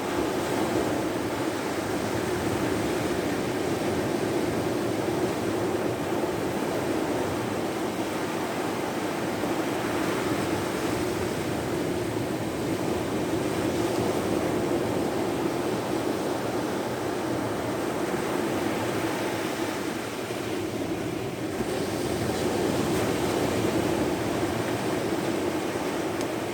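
Steady wash of Baltic Sea surf, an even noise with no separate splashes or knocks.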